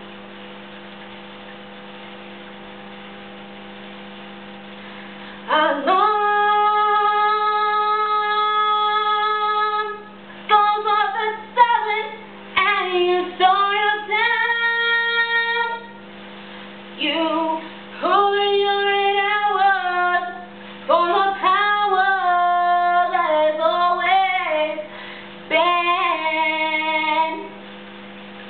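A girl singing a show-tune solo unaccompanied. She comes in about five seconds in with a long held note, then sings shorter phrases, over a steady low hum.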